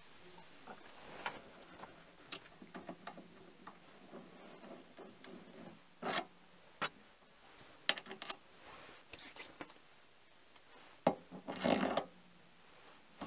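Mini lathe's steel four-way toolpost being handled by hand as it is lifted off the compound slide and turned over: scattered light metal clicks and knocks, with a short scraping rattle near the end.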